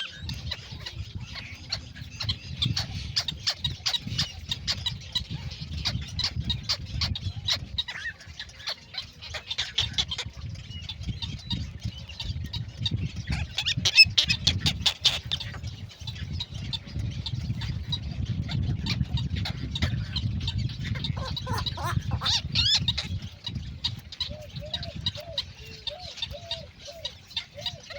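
Birds calling and squawking, many short sharp calls over a low background rumble, with a louder flurry about halfway through and a run of short repeated calls near the end.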